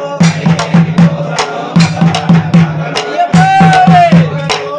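Ayyappa bhajan: men singing a devotional song together over hand-clapping and percussion that keep a fast, steady beat. About three seconds in, one voice holds a long high note.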